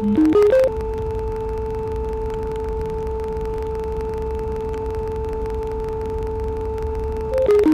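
A steady pure tone held on the note A, about 440 Hz, with its octave faintly above. Right at the start a quick run of four short notes steps up to it, and near the end a matching run steps back down. A low background rumble sits underneath.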